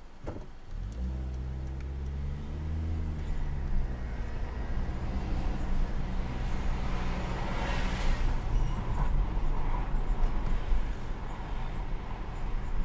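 Car being driven: an engine drone that starts about half a second in and rises in pitch as it accelerates, over a steady low rumble, with a hissing swell about eight seconds in. This is recorded as an abnormal noise the car makes while driving.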